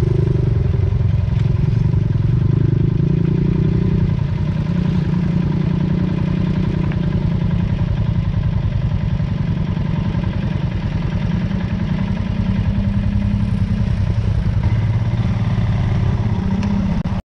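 Motorcycle engine running under way, with a dense, even firing beat; its tone shifts slightly about four seconds in.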